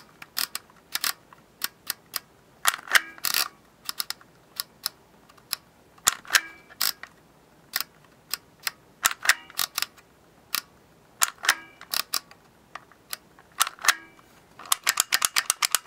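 Vintage Dymo embossing label maker with a script character wheel, embossing a word onto red plastic tape: sharp plastic clicks as the wheel is turned to each letter and the handle squeezed to press it, coming in groups, with a quick run of clicks near the end.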